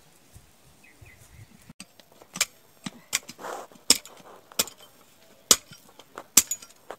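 A kutla, a short-handled Garhwali hoe, chopping into dry, stony soil. About two seconds in, a run of seven sharp strikes starts, roughly one a second, with a short scrape of loosened earth between two of them.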